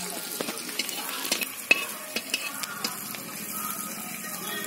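Flat metal spatula scraping and clicking against a metal wok (kadhai), several strokes a second, as food fries with a light sizzle.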